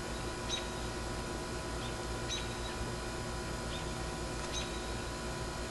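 A few short, high bird chirps, spaced irregularly, over a steady low hum.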